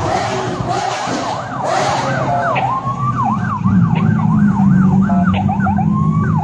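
A siren wailing in a fast up-and-down yelp, a few sweeps a second, over the low, steady running of Lamborghini engines as the cars pass at walking pace. A louder engine swell comes about a second in.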